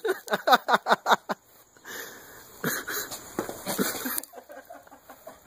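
A man coughing and sputtering in a quick run of about six short fits, then another bout about two and a half seconds in, as Diet Coke foams up from the Mentos held in his mouth.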